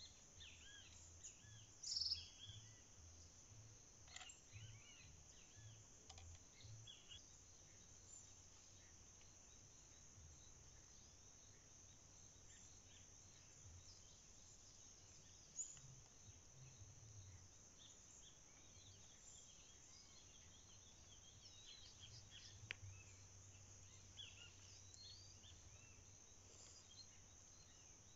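Faint countryside ambience: a steady high insect hum with scattered short bird chirps, the loudest a sharp chirp about two seconds in.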